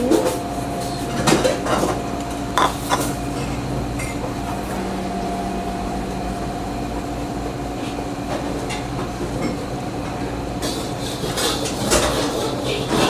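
Metal cookware and utensils clanking in a busy stall kitchen over a steady background hum. A few separate clanks come in the first few seconds, and a busier run of clattering and scraping comes near the end.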